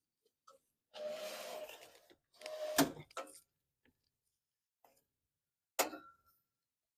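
Sheet-metal furnace heat exchanger being slid into the unit's cabinet: two scrapes of metal on metal, the second ending in a sharp knock about three seconds in, then a single ringing metal clank near six seconds.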